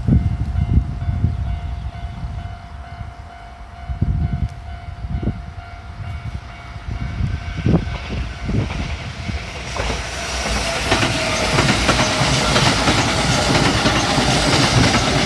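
Japanese level-crossing warning bell ringing steadily. About ten seconds in, a train starts passing through the crossing, its wheels clattering over the rail joints and growing louder.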